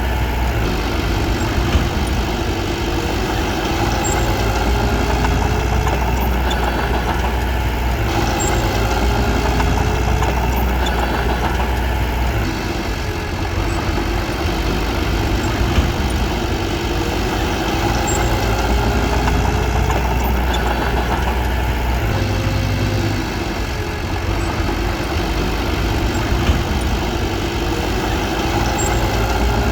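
Bulldozer's diesel engine running steadily under work, its pitch wavering slightly, easing off briefly twice.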